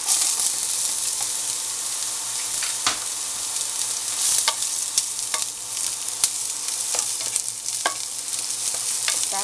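Chopped red onion sizzling as it sautés in hot oil in a nonstick frying pan, a steady high hiss. A spatula stirring the onion scrapes the pan and adds scattered sharp ticks.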